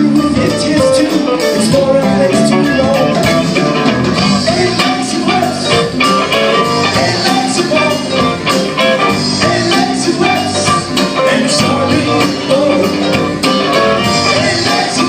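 Live rock band playing a song, with a steady beat from regular drum or percussion hits.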